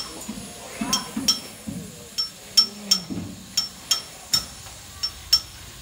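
Hammering at a building site: sharp metal-on-metal clinks, roughly two a second and unevenly spaced, each ringing briefly.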